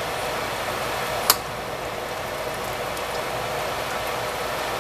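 Hush puppies frying in hot oil in a deep pan: a steady sizzling hiss. One sharp clink of the metal slotted spoon against the pan about a second in.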